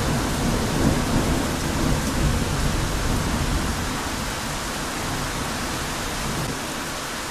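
Heavy rain pouring steadily, with a deep rumble of thunder rolling on and fading away about halfway through.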